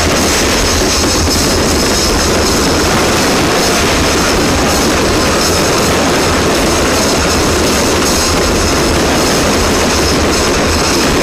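Fireworks display going off in a dense, unbroken barrage of rapid crackling and bangs, loud and steady throughout.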